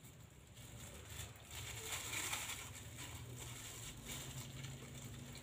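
Plastic bag crinkling as it is worked open by hand over a glass, loudest about two seconds in, over a low steady hum.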